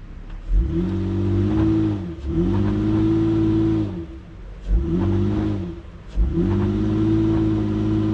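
Honda Ridgeline's V6 engine revved hard four times, each rev rising, held for one to two seconds and dropping back, with a thump as three of them begin. The truck is straining in VTM-4 lock against rear wheels held fast by seized, rusted brakes.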